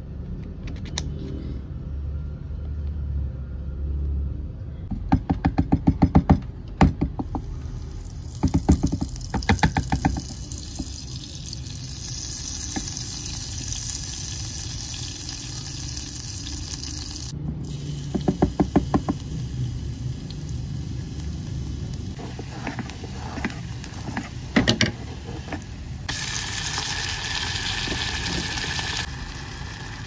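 Margarine and oil sizzling in a nonstick electric cooking pot, with several short bursts of rapid scraping clicks from a bamboo spatula against the tub and pot. A steady low hum runs underneath.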